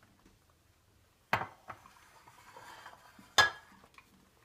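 Glassware clinking twice, about two seconds apart, the second knock the louder: a drinking glass knocking against a glass graduated cylinder or the stone counter while red cabbage indicator is poured into the cylinder.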